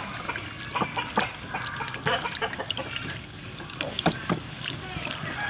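Water trickling from a plastic scoop over a sea snail in a wooden tub, with irregular small splashes and wet rubbing as a hand scrubs the shell and flesh.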